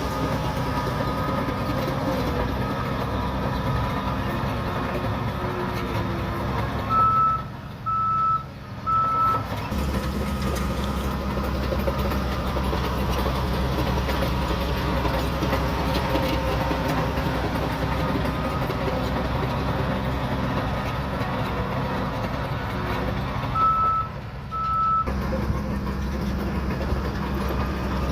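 Shantui DH17C3 bulldozer's diesel engine running steadily under load, with a high-pitched reversing alarm beeping three times about seven seconds in and twice more near the end.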